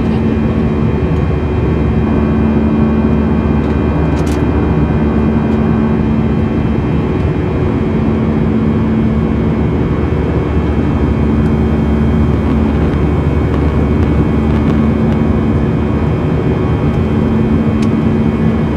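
Jet airliner in flight heard from inside the passenger cabin: a steady engine and airflow drone with a constant low hum.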